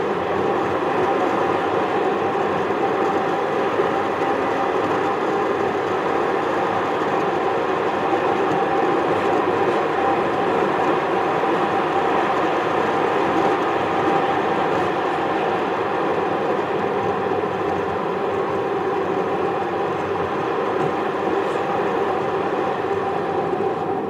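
Steady road and engine noise of a car cruising on asphalt, heard from inside the cabin: an even rumble of tyres and engine with a faint steady hum, unchanging throughout.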